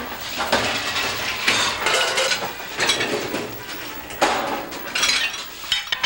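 Ceramic dinner plates clattering and clinking as they are gathered and stacked, with a string of sharp knocks; the loudest comes about four seconds in.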